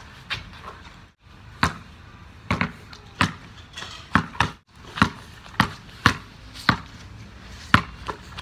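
Basketball bouncing on a wet cement driveway, a sharp smack with each bounce, coming about two a second through the middle as it is dribbled.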